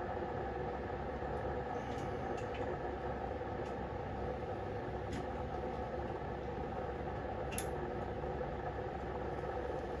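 Steady mechanical hum of the workshop background, with a few light clicks and taps of small parts and tools being handled during engine reassembly.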